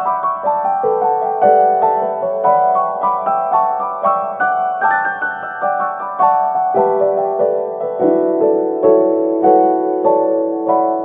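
Background music: a piano playing a flowing melody of many quick notes over sustained lower notes.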